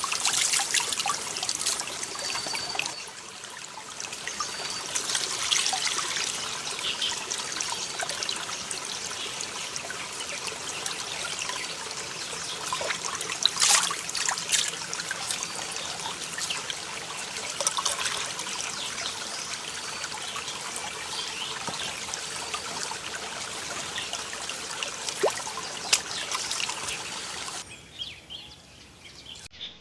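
Shallow stream trickling over rocks, with splashing as a sheet of bark is rinsed in the water and a clay pot is dipped in and filled. The water sound drops away near the end.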